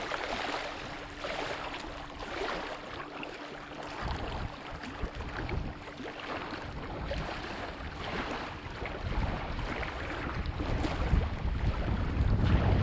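Wind buffeting the microphone over a steady rushing noise, the low wind rumble growing stronger over the last few seconds.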